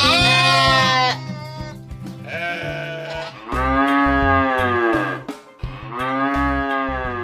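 Farm-animal bleating, about four long calls that each rise and fall in pitch, the first with a quavering waver, over background music with low sustained notes.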